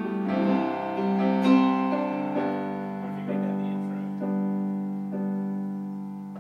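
Keyboard playing slow piano chords, a new chord struck about once a second and left to ring, the sound dying away toward the end.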